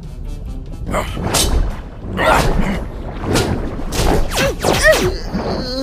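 Cartoon action sound effects: a run of sudden whooshes and hits about once a second, then a couple of falling swooping glides about four to five seconds in.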